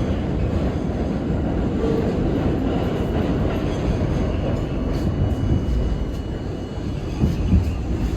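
R32 subway car rumbling along the track, heard from inside the car, with wheels clicking over the rail joints and a faint whine in the middle seconds.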